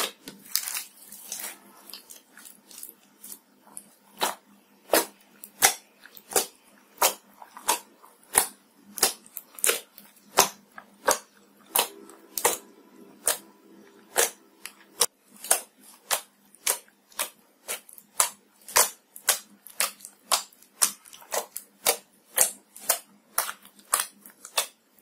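Glossy slime popping and clicking as fingertips poke into it and pull out, about two sharp pops a second.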